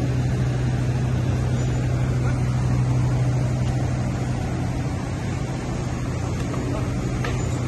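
Steady low drone of large barn ventilation fans running, a constant hum over an even whooshing noise.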